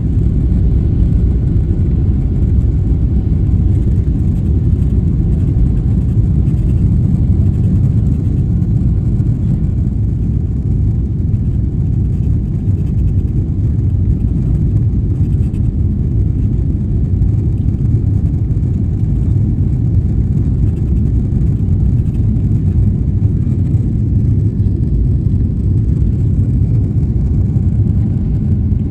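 Boeing 777-300 jet engines heard from the ground: a loud, steady low rumble that holds without change.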